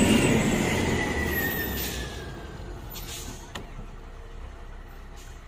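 Heavy road vehicle passing close and fading away, a whine in its noise sliding slowly down in pitch as it goes.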